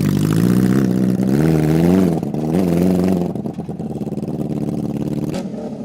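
A 650cc motorcycle engine in a ride-on lawnmower revs up and down about three times, then drops back to a lower, steadier run. A few sharp clicks come near the end.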